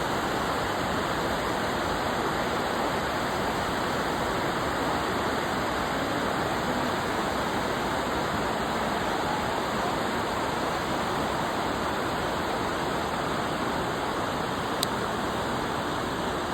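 Flowing water rushing steadily, with one brief high click about fifteen seconds in.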